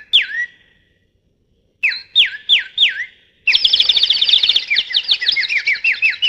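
Bird-call whistles opening a song: two quick falling chirps, a pause, then four falling chirps about three a second. About halfway through, a faster run of chirps starts with higher twittering over it.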